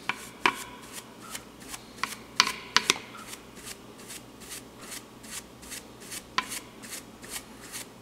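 Stiff-bristled paintbrush scrubbing over the surface of a plastic scale model aircraft, blending oil paint weathering stains: a run of short scratchy bristle strokes, about three a second.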